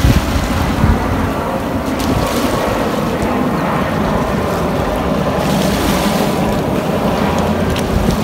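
Wind buffeting the microphone, with waves lapping against the rocks of a jetty; a steady rush of noise throughout.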